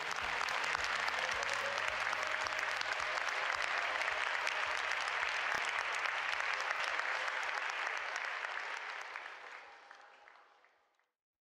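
Audience applauding after a dance number: a dense, even clatter of many hands clapping that fades out about ten seconds in.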